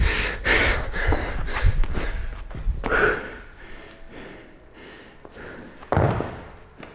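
A person breathing hard and gasping from heavy exertion, a run of quick loud breaths that tails off, with a single thud about six seconds in.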